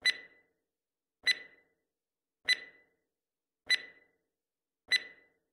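Quiz countdown timer sound effect: five short ticks, about one every 1.2 seconds, each a sharp click with a brief high ring, counting down the five seconds to answer.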